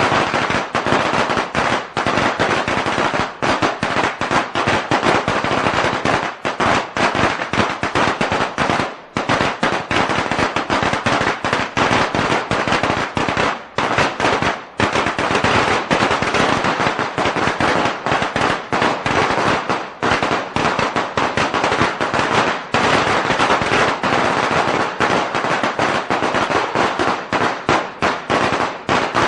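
A long string of firecrackers going off in a loud, rapid, nearly unbroken crackle of bangs, with brief lulls about nine and fifteen seconds in.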